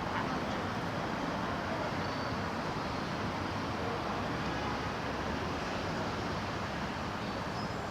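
Steady city street traffic noise, an even rush of passing vehicles with no distinct events.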